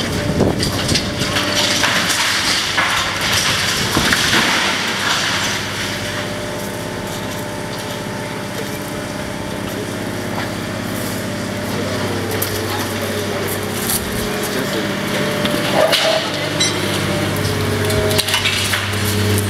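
High-reach demolition excavator crunching and breaking concrete at the top of a building, with dense crackling and clattering of debris, heaviest in the first few seconds. The machine's engine hums steadily underneath, clearer in the second half.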